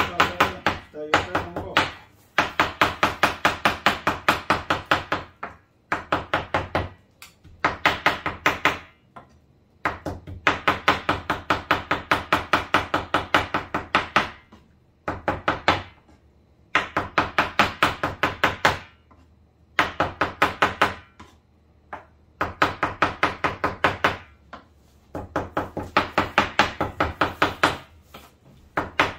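A knife chopping rapidly on a cutting board, about five or six strikes a second, in runs of one to four seconds with short pauses between them.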